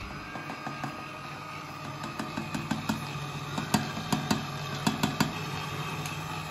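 Electric stand mixer running at low speed, its flat beater turning batter in a steel bowl with a steady motor hum. From about two to five seconds in comes a run of light clicks and knocks as grated carrot is added to the bowl.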